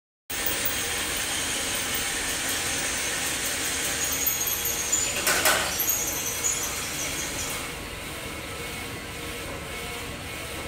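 Steady mechanical whirring and hum of machinery in a printer assembly workshop, with thin high whines coming and going. A brief louder rushing noise comes about five and a half seconds in, and the noise eases a little near eight seconds.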